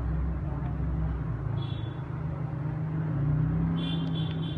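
Steady low rumble of road traffic, with a faint high-pitched tone briefly about one and a half seconds in and again from about four seconds in.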